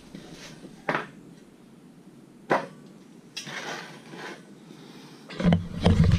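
Two sharp knocks, about a second and two and a half seconds in, as a piece of wood and a stainless propeller are set down on a concrete floor, with some rustling after. Near the end, loud low rumbling thumps of the camera being handled and moved.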